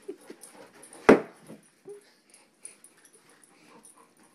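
English mastiff puppy humping a wooden rocking horse and a plush toy: soft scuffling, small rattles and faint dog sounds, with one sharp, loud knock about a second in.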